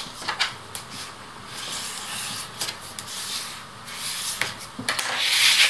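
Black cardstock being handled and rubbed by hand: paper sliding and scraping, with a few light taps and a louder rustle near the end.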